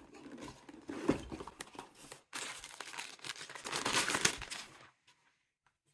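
Crinkling and rustling of packaging being handled, with a few louder crackles. It stops just before five seconds in.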